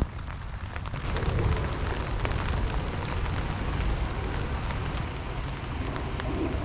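Rain pattering on a tent's flysheet, many small drop ticks over a steady low rumble of wind.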